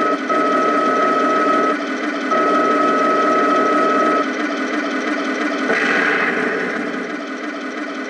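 Tamiya 1/16 RC Panther's sound unit playing a steady engine idle through its small speaker. A high whine starts and stops three times in the first four seconds as the gun barrel is moved in elevation. A short hissing burst follows about six seconds in.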